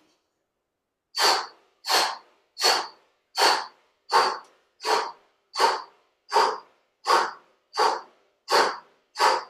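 A person's sharp, forceful breaths out in a steady rhythm, about three every two seconds, starting about a second in, each one short and fading fast: breathing out on every repetition of a floor exercise.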